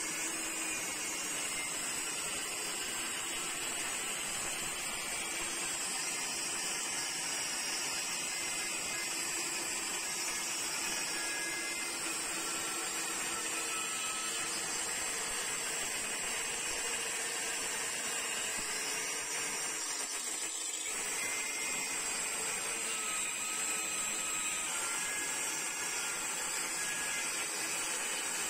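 A handheld electric woodworking power tool runs continuously under load, a steady motor whine with a dense high hiss, as it cuts along a hardwood plank. The sound dips briefly about twenty seconds in.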